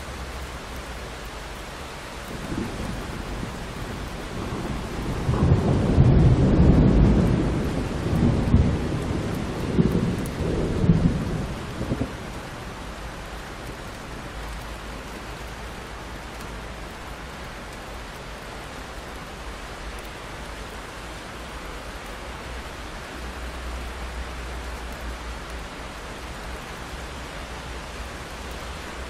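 Steady rain falling on a window pane, with a long rumble of thunder that swells a few seconds in, peaks several times, and dies away about twelve seconds in, leaving the rain alone.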